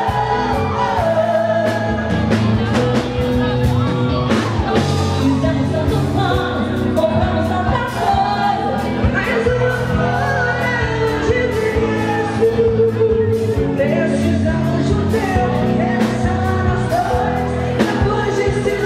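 Live band music with female lead vocals sung into microphones, continuous and loud.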